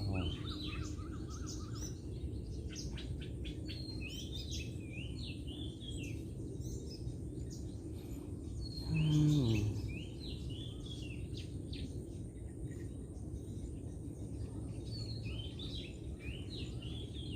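Birds chirping and calling again and again over a steady low background noise. About halfway through, a louder, lower sound lasting about a second falls in pitch.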